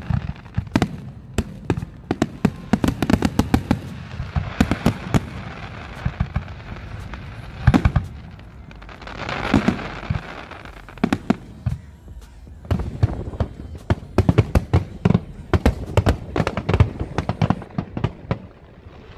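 Fireworks display: aerial shells bursting in a rapid run of sharp bangs, in clusters with short lulls, with a crackling hiss between some of the bangs.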